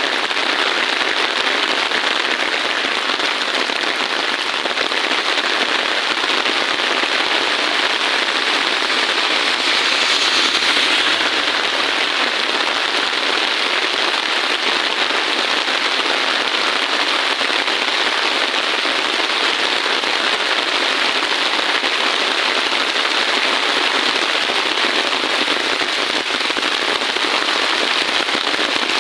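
Heavy rain falling steadily, a dense crackling patter with no let-up.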